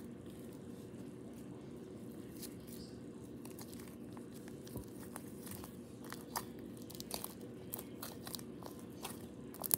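Hands playing with homemade slime: scattered faint sticky clicks and crackles, more frequent in the second half, over a steady low hum.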